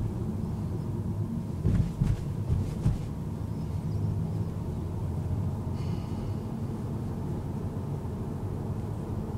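Steady low rumble of a car's road and engine noise heard inside the cabin while driving, with a few short knocks about two seconds in and a brief faint high tone a little past halfway.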